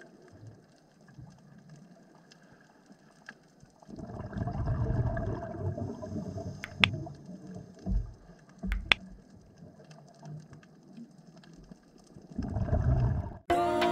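Underwater sound on a coral reef: a low watery rumble that swells about four seconds in and again near the end, with two sharp clicks about two seconds apart in between. Music begins right at the end.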